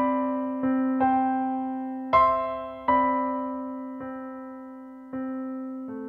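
Background music: a slow piano melody of single notes that ring out and fade over a held low note, with a longer pause in the middle.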